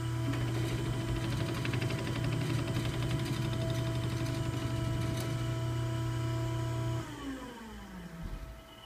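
Electric drive motor of a fixed-radius mandrel bend tester running with a steady hum, then switched off about seven seconds in and winding down with falling pitch.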